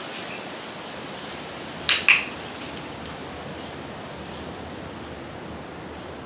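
Dog-training clicker clicked once, its press and release giving two sharp clicks about a fifth of a second apart around two seconds in, over a steady background hiss.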